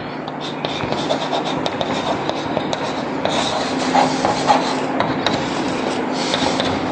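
Chalk writing on a blackboard: a busy run of scratches and sharp taps as letters are written.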